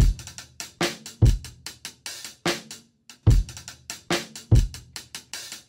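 Drum beat of kick, snare and hi-hat, with a short break about three seconds in.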